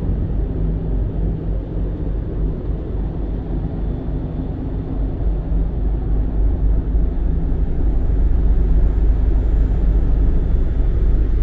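Steady low rumble and hum of a car ferry under way, heard on board, mixed with wind noise on the microphone; it grows a little louder in the second half.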